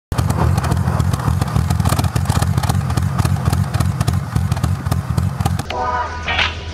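Exhaust of a 1987 BMW 320i (E30) with its 2.0-litre straight-six running steadily at idle. Near the end the engine sound gives way to electric guitar music.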